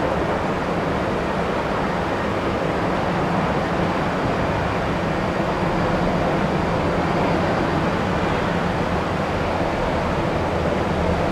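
Steady drone of aircraft engines running on an airport apron, with an even low hum under it and no rises or breaks.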